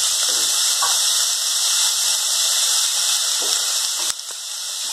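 Chopped onions sizzling steadily in hot coconut oil in a pan, with a brief dip in the sizzle about four seconds in.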